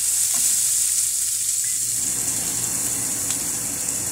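Sliced bell peppers, celery and onion sizzling in hot oil in a nonstick skillet, a steady high hiss as they are stirred. About two seconds in, a lower steady rush from the kitchen vent fan joins it.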